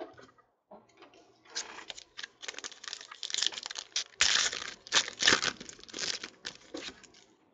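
Foil wrapper of a 2014 Panini Prizm football card pack being torn open by hand: a run of rustles and rips starting about a second and a half in, loudest around the middle.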